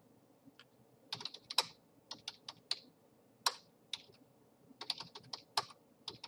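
Computer keyboard typing: short, irregular runs of keystrokes separated by brief pauses.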